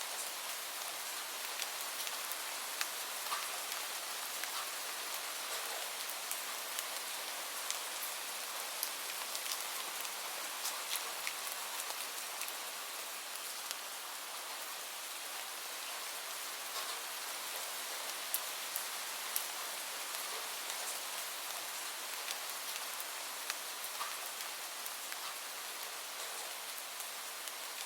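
Steady rain falling: an even hiss dotted with scattered sharp ticks of individual drops hitting a surface.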